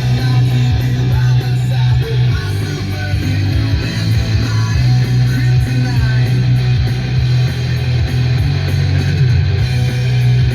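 Background rock music with heavy electric guitar and bass.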